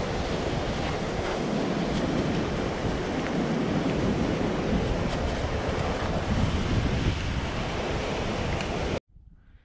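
Steady, loud rush of wind buffeting the microphone, cutting off suddenly about nine seconds in.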